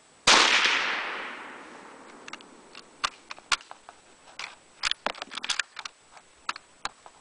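A single rifle shot from an M91 Carcano in 6.5×52mm, a sharp report about a third of a second in that echoes away over about two seconds. Then a run of metallic clicks as the bolt is worked to eject and rechamber, stiff with neck-sized hand loads.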